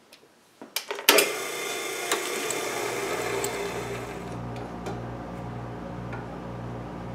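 A few light clicks, then an electric shop machine motor switches on about a second in and runs with a steady hum. A brighter whirring sound fades over the next few seconds, and a low hum with a slow, even pulsing is left.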